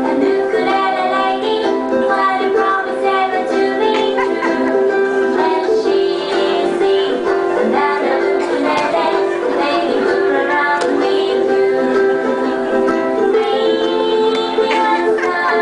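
Ukulele music playing steadily, an upbeat tune with sustained notes under the strumming.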